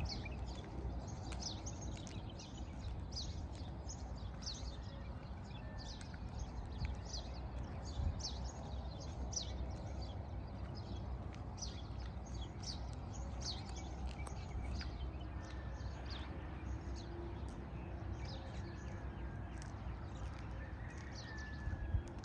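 Small birds chirping: many short, high, falling chirps, several at a time, over a low steady rumble.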